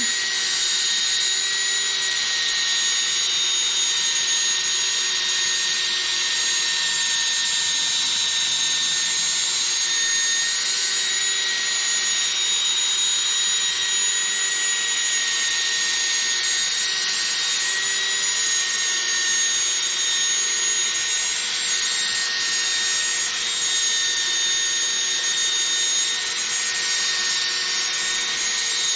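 Cordless drill spinning a sanding disc across a plastic headlight lens: a steady high motor whine with the hiss of the abrasive rubbing the plastic.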